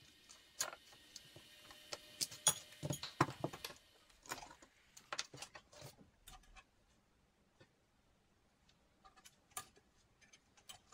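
Scattered light clicks and taps of metal stock, a straightedge and a marking tool being handled and set down on a wooden workbench while marking out parts. The taps are busiest in the first six seconds and thin out after that.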